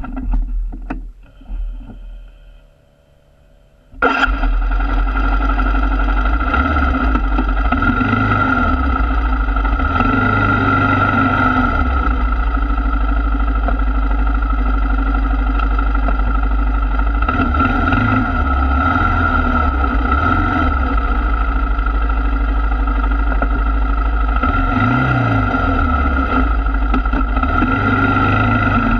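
ATV engine running steadily while riding along a sandy trail, with wind buffeting the microphone; the sound starts suddenly about four seconds in after a quieter stretch.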